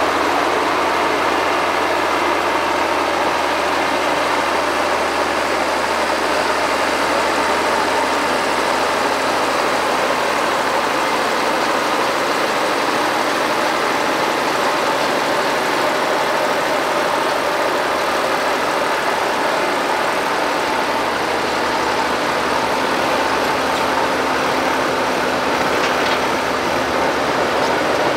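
Steady diesel engine noise of a Shantui crawler bulldozer at work, an even drone at a constant level.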